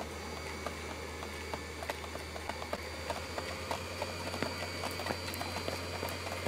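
Conveyor belt machinery running with a steady low hum and a faint whine, while small pills click irregularly as they drop onto the belt and into plastic pill bottles.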